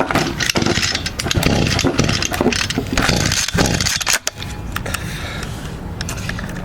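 Echo GT-200 two-stroke string trimmer being pull-started over and over, the recoil cord rasping as the engine turns over without catching. It fails to start even with a new carburetor fitted and the choke on. The pulling stops about four seconds in.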